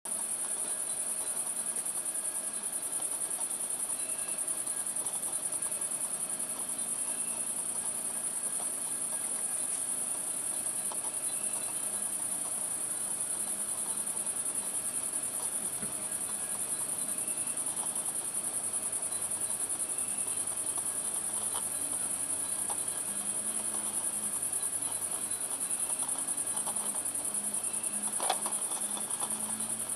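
Crickets chirring in a continuous high-pitched trill, with a single faint click near the end.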